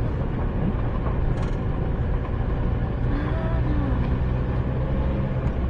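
Car driving slowly along a dirt road, heard from inside the cabin: a steady low engine hum with tyre noise on the dirt.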